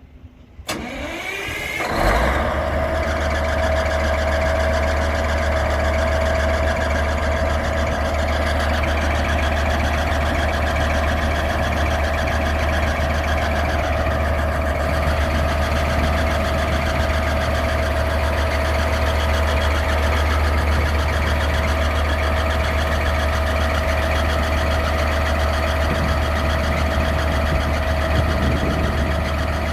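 Cat C27 diesel engine of a Peterson 5710C horizontal grinder starting about a second in, rising quickly in pitch, then running steadily with a deep rumble and a steady whine.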